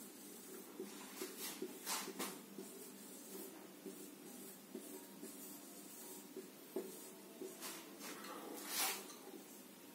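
Marker pen scratching and squeaking on a whiteboard as boxes and connecting lines are drawn, in short strokes that cluster about a second in and again near the end, the longest one near the end. A low steady hum runs underneath.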